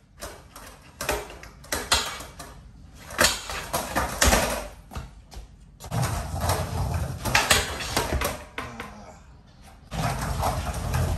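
Skateboard on a tiled floor: several sharp clacks of the board in the first few seconds, then the wheels rolling with a steady rumble from about six seconds in, easing off briefly and picking up again near the end.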